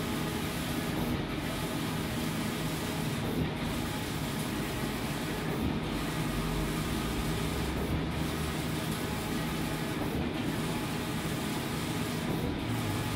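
Wide-format inkjet printer running as it prints, a steady mechanical hum and hiss with a brief regular lull about every two seconds as the print-head carriage sweeps back and forth.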